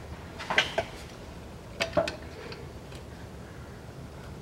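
A clip-removal tool levering under a self-tapping screw driven into the plastic Haldex oil-filter cover, giving a few light clicks and taps of metal on metal and plastic, mostly in the first half.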